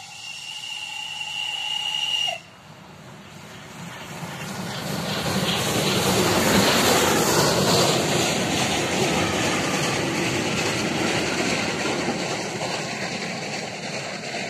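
Steam locomotive's whistle blowing a steady note for about two seconds, then breaking off. Then the steam-hauled train rolls past over a level crossing, its wheels rumbling and rattling: the sound builds, is loudest about halfway through, and slowly fades as the coaches go by.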